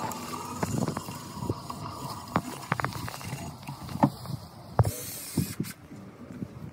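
Scattered sharp clicks and knocks from hands-on work over steady outdoor background noise, with two louder knocks about four and five seconds in.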